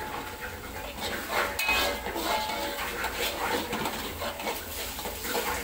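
Metal spatula scraping and stirring in a wok, frying spice paste and egg in hot oil: irregular scrapes and knocks over a frying sizzle.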